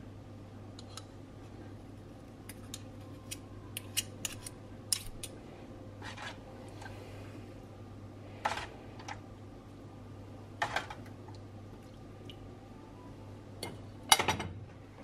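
Metal spoon clinking and scraping against dishes, with soft wet pours, as gravy is spooned onto a plate of beef brisket. Scattered light clicks, a few longer scrapes and pours, and the loudest clatter near the end, over a low steady hum.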